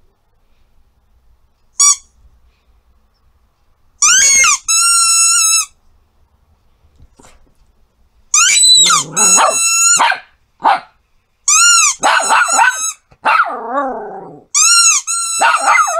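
Rubber squeaky toy ball being squeezed over and over, giving loud high-pitched squeaks in short runs, the first one brief about two seconds in. A small dog, a Yorkshire terrier, gives a few excited barks and yelps among the squeaks.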